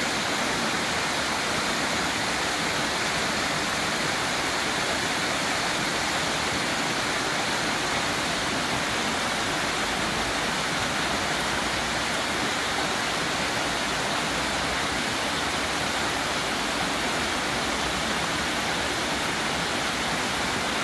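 A small waterfall pouring over a rock ledge into a shallow rocky pool: a steady, even rush of falling and splashing water.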